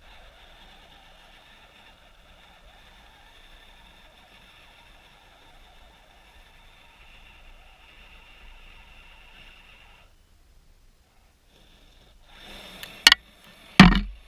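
Faint steady whine of a small electric motor and gears, which stops suddenly about ten seconds in. Near the end come two loud sharp knocks, the second the loudest and deepest.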